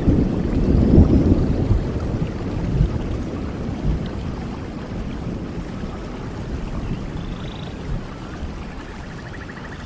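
Thunderstorm in a rainforest: a roll of thunder rumbles and slowly fades away over steady rain, with a few faint high chirps near the end.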